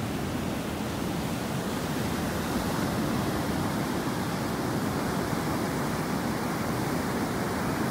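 Sea surf breaking continuously on a sandy beach, in waves about 1.2 to 1.5 metres high: a steady, even rush of breaking water with no single crash standing out.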